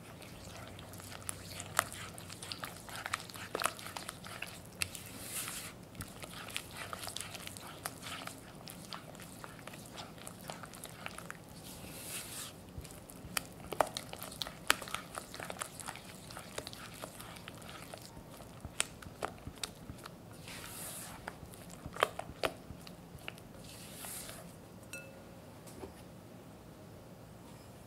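Silicone spatula mixing creamed butter and beaten egg in a glass bowl: wet squelching and scraping strokes, with irregular sharp taps of the spatula against the glass.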